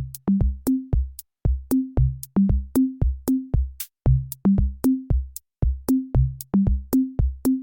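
Background music: an electronic drum-machine beat of low, pitched drum hits that step up in pitch in runs of three, each hit with a sharp click on top, about three hits a second.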